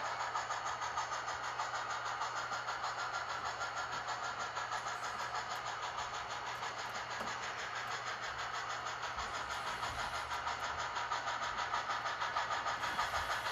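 Simulated steam locomotive chuffing from the Tsunami DCC sound decoder's speaker in a Blackstone HOn3 D&RGW C-19 model locomotive, an even, regular beat as the model runs.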